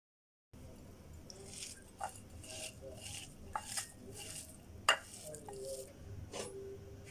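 Chopped onions and ground spices being mixed by hand on a ceramic plate: repeated soft rustling swishes, with a few sharp clicks against the plate, the loudest about five seconds in.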